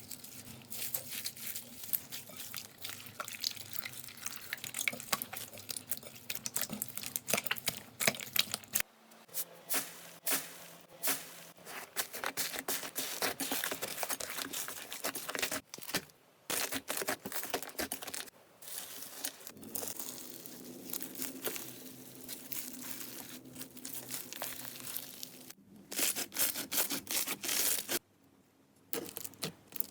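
Slime being squeezed, stretched and pressed by hand, making dense crackling and popping clicks. The texture changes several times, with a brief lull near the end.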